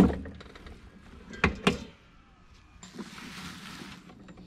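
Spring-assisted deck-height adjustment lever on a Yard Force 22-inch push mower being moved through its detents: a sharp metal clunk, then two quick clicks about a second and a half later. Near the end comes about a second of soft hiss.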